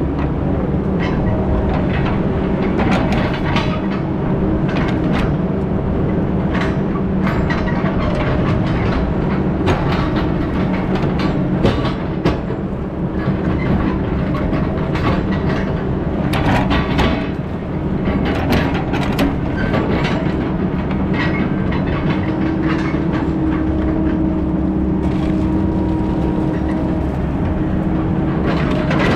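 Heavy diesel machinery running steadily, its engine holding a constant pitch, with frequent clanks and rattles over it.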